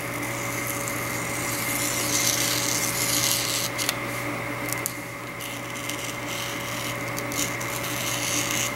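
An X-Acto knife blade scratching through a foam sheet and the paper plan taped on top, cutting along a curved line. The scratching is loudest about two to three seconds in, with a few small clicks of the blade. A steady electrical hum runs underneath.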